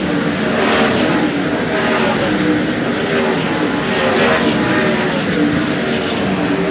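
Several World of Outlaws 410 sprint cars' V8 engines running together around a dirt oval, loud and steady, their pitches rising and falling as cars come past.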